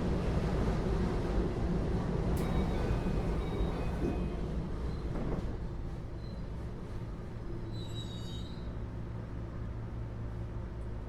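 Running noise inside a Keio 8000 series electric train car, a GTO-VVVF unit, heard from above the main controller. The rumble of wheels and motors is loud at first and drops about five and a half seconds in, leaving a steady low hum with a few faint high tones near the end.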